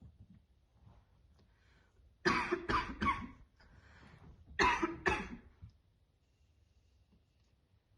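A woman's harsh smoker's cough: a quick run of three hard coughs a little over two seconds in, then two more about two seconds later, brought on by deep vape hits on lungs worn by heavy smoking.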